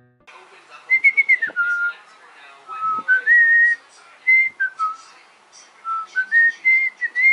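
Someone whistling a tune: a single clear note held, then stepping and sliding between higher and lower pitches in short phrases. Faint clicks and scuffs sound underneath.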